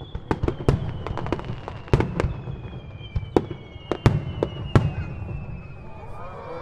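Aerial firework shells bursting in a rapid, irregular run of sharp bangs, several a second, over a low rumble. A faint high tone slides slowly down in pitch underneath.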